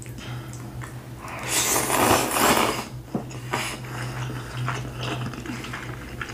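A long, loud slurp of teriyaki chicken noodles about a second and a half in, followed by wet chewing and lip-smacking. A low steady hum runs underneath.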